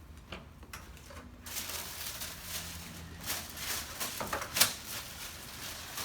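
A person turning over on a padded chiropractic treatment table: rustling, with a few clicks and knocks, and one sharp knock about three-quarters of the way through.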